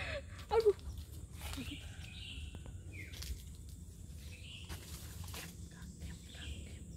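Wild birds calling on and off, short calls repeating every second or two with one falling note, over a steady low background rumble. A brief cluster of sharp, louder sounds comes about half a second in.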